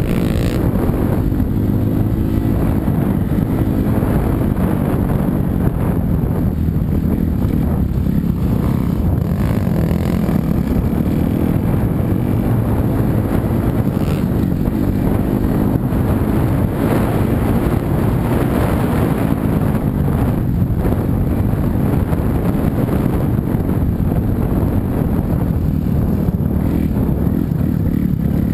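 A 250cc four-stroke motocross bike's single-cylinder engine running continuously while riding, its revs wavering up and down, with wind noise on the microphone.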